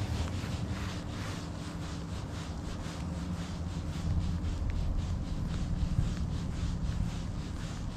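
Spinning reel being cranked steadily on a lure retrieve, its gears and rotor giving an even, rhythmic rubbing of several strokes a second over a low steady rumble.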